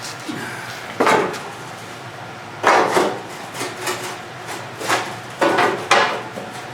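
A string of sharp clanks and knocks from tools and metal parts being handled on a garden tractor. The loudest come about a second in, near three seconds, and twice late on, with lighter taps between them.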